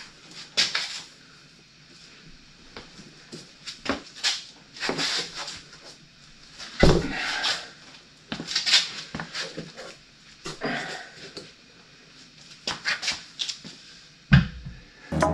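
A large R4 rubber tractor tire and wheel being manhandled onto a John Deere 3120's rear hub: irregular scuffing and rubbing of rubber with scattered knocks and clunks as the wheel is rocked and lifted into place.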